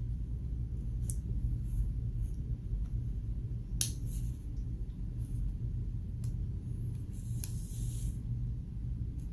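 A few light, sharp clicks of small metal parts being handled as a Renata 394 button cell is fitted into a quartz watch movement, with a brief hiss near the end, over a steady low hum.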